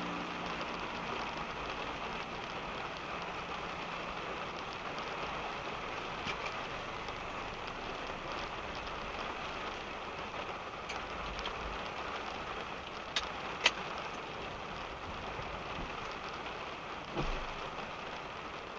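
Rain pattering steadily on a car's roof and windscreen, heard from inside the car. It is a constant hiss of drops, with two sharp ticks about two-thirds of the way through and a short low thump near the end.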